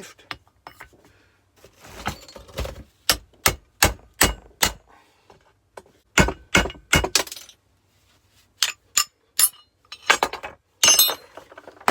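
Hammer blows on a steel drift, knocking needle bearings out of a car compressor's cast aluminium housing: sharp metallic strikes in quick runs of about two or three a second, then a ringing metallic clatter near the end.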